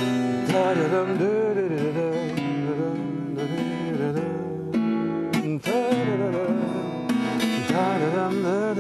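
Acoustic guitar playing the instrumental break between verses of a Russian bard song, with a wavering melody line over the chords.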